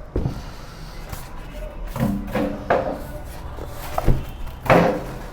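Handling and unwrapping a new keyboard's packaging: a string of knocks and rustling, the loudest near the end.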